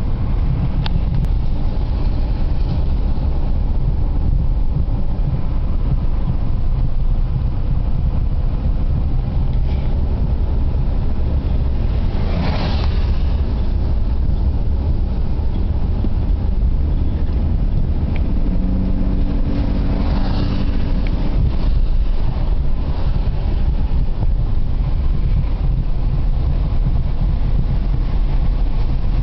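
Cabin noise of a Mercedes-Benz W140 300SE on the move: a steady low engine and road rumble with tyre hiss from the wet road. Two brief louder swishes stand out, about twelve and twenty seconds in.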